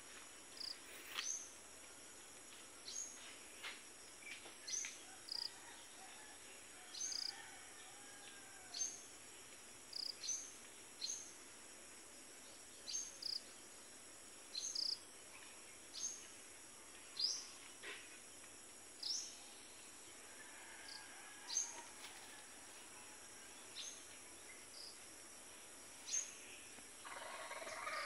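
A bird chirping over and over in short, high, sweeping notes every second or two, against a steady high hiss, with a brief rustle near the end.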